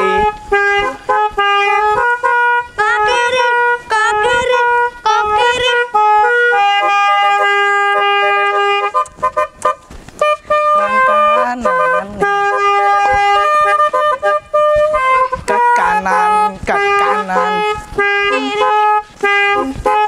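Telolet musical air horn with a DAV module, played through a snail-shaped (keong) horn, playing a quick tune of held notes that change pitch every fraction of a second, with a few longer held notes around the middle and a short break about ten seconds in.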